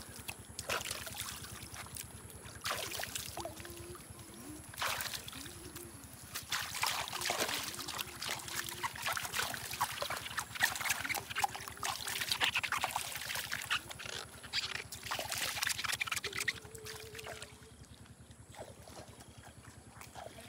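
Water splashing and sloshing as hands scoop through a shallow, flowing muddy ditch, in irregular splashes. The splashing dies down for the last few seconds.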